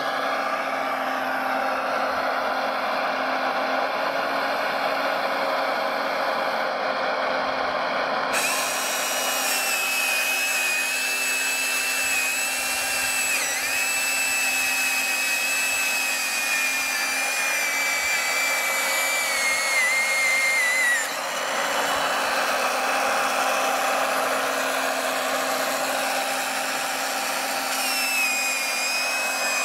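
Model excavator's chainsaw head cutting through a log: its motor whines steadily, the pitch sagging slightly as the chain works through the wood. The whine starts about a third of the way in, stops suddenly about two-thirds through, and starts again near the end, over a steady motor hum.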